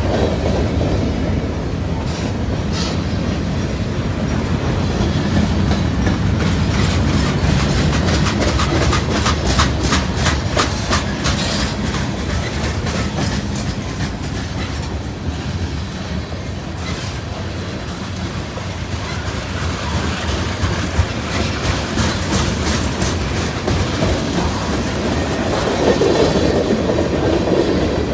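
A long freight train rolling past, its cars rumbling with steady clickety-clack of wheels over rail joints, the clicks coming thickest in the middle.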